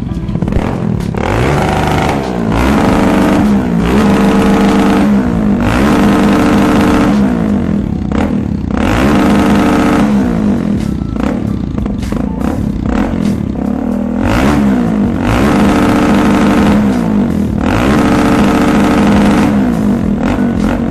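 Motorstar Cafe 400 motorcycle engine revved over and over, the throttle blipped up and let back down about every two seconds, to blow carbon out of the engine.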